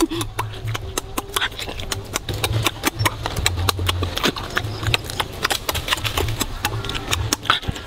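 Close-up eating sounds: crispy fried chicken being crunched and chewed, a dense run of sharp, irregular crackling clicks.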